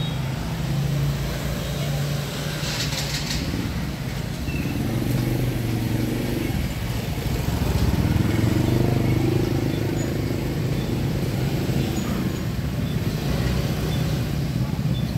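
Motor scooters running past at close range in steady street traffic, one passing loudest about halfway through.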